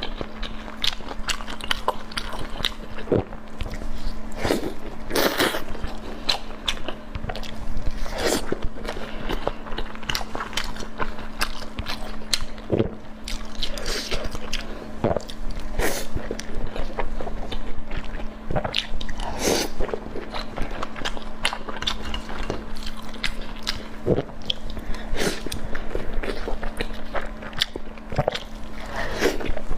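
Close-miked eating sounds: a person biting and chewing food, with many irregular short wet clicks and smacks over a steady low hum.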